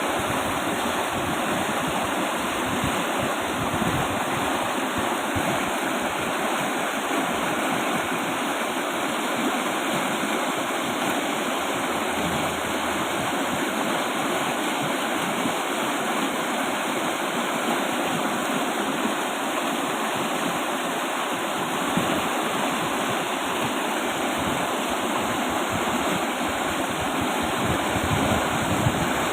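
A fast-flowing river rushing steadily over rocks, a loud, even rush of water.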